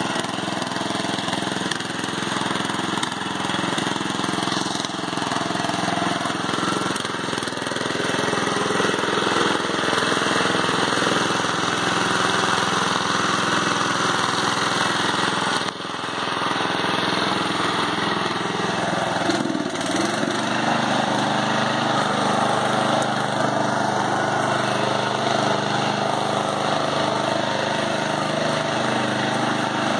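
Murray riding lawn tractor's small engine running steadily under load as it pushes through a mud hole, with a short drop in level about halfway and a shift in pitch a few seconds after.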